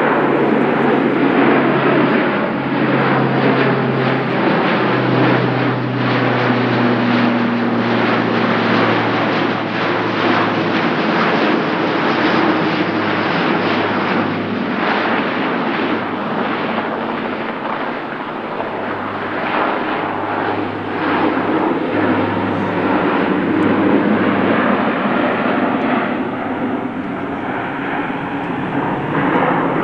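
Airbus A400M's four TP400 turboprop engines driving eight-bladed propellers, a loud steady drone as the aircraft passes overhead and moves away. The low propeller hum drops in pitch as it goes by.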